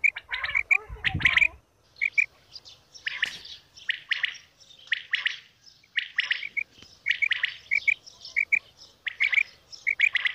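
Common quail calling: short, clipped notes in quick groups of two or three, repeated about once a second, with a few rougher, fuller calls mixed in.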